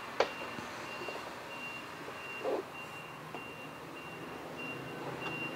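A faint high electronic beep repeating about twice a second, like a reversing alarm. Over it, a sharp click just after the start and a dull knock about halfway through as the grill's plastic handle parts are handled.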